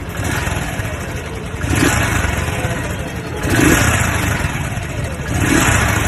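Royal Enfield motorcycle engine running and revved up three times, about two seconds apart, with a 'vaa' sound from the engine that is cam noise.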